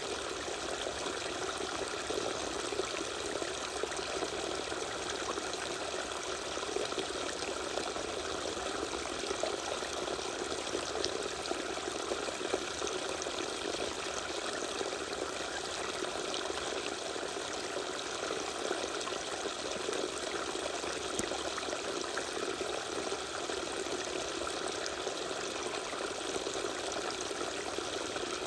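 Small waterfall, water falling and splashing in a steady, even rush.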